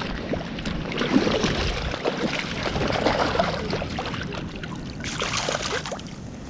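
Creek water splashing and trickling, with many small irregular splashes that ease off near the end.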